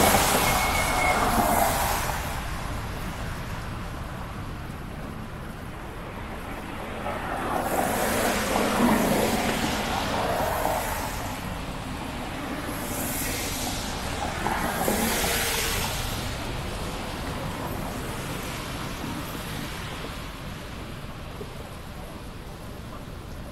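Road traffic passing: several vehicles swell up and fade away one after another, with a hiss of tyres on a wet street.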